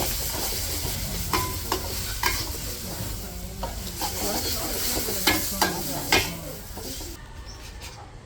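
Food sizzling in hot oil in a pan as it is stirred, with several sharp clinks of a metal utensil against the pan. The sizzle cuts off suddenly near the end.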